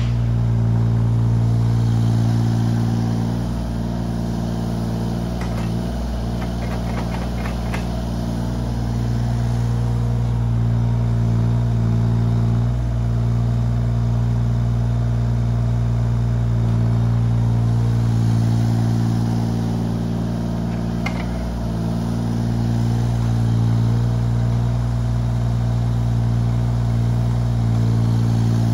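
Yanmar ViO17 mini excavator's three-cylinder diesel engine running steadily, its sound swelling and easing every few seconds. A short run of light clicks and rattles comes about a quarter of the way through, and a single knock a little past the middle.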